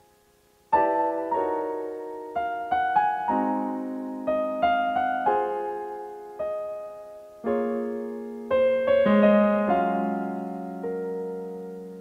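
Background solo piano music: after a brief silence, a slow melody of single struck notes and chords, each dying away, ending on a held chord that slowly fades.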